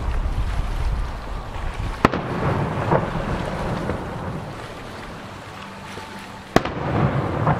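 Aerial firework shells bursting: two sharp bangs, about two seconds in and near the end, the second the louder, each trailed by a long rolling rumble.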